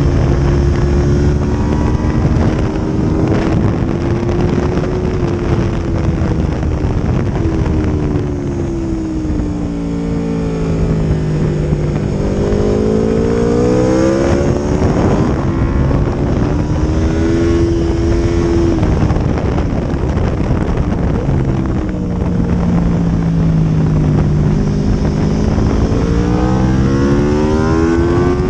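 2022 Aprilia RSV4 1100 Factory's V4 engine running hard on track, its pitch dropping twice as the bike slows for corners and climbing again as it accelerates out.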